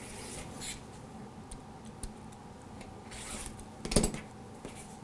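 Rotary cutter blade rolling through cotton fabric along the edge of an acrylic quilting ruler, a faint scraping cut, with a short knock about four seconds in.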